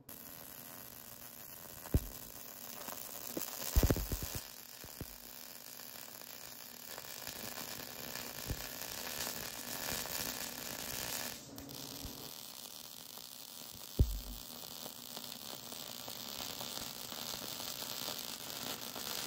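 Wire-feed (MIG) welding arc crackling and sizzling steadily while the seams of a fabricated 9-inch axle housing are welded, with a few sharp clicks. The sound changes abruptly about eleven seconds in.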